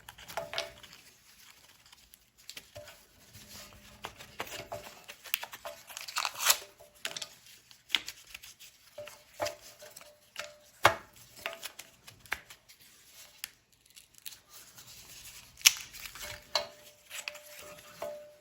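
Tape being peeled and torn off a scroll-sawn wooden block, in irregular crackling tears, with sharp small clicks as the cut wooden pieces are pulled apart and handled.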